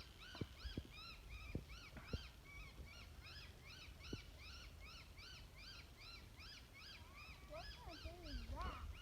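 A bird calling over and over in short arched notes, about three a second, that sound like it is in distress. Near the end a lower, wavering gliding call joins in.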